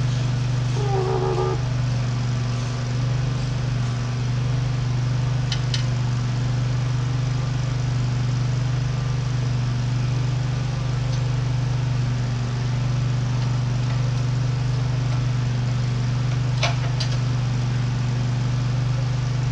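A steady low mechanical hum of running machinery, with a few light metallic clicks as steel hydraulic hard lines are handled and fitted on a front loader.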